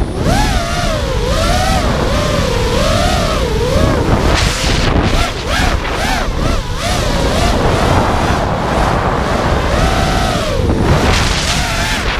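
FPV racing quadcopter's four T-Motor F40 2400KV brushless motors spinning 5-inch tri-blade propellers, their whine rising and falling quickly with the throttle. A steady low rumble of wind over the onboard camera's microphone runs underneath.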